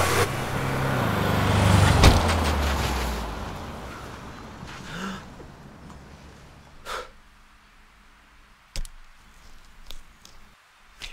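Cartoon sound effect of a car engine winding down in pitch, with a sharp loud thud about two seconds in. A rush of noise then fades out, followed by a few short, faint knocks.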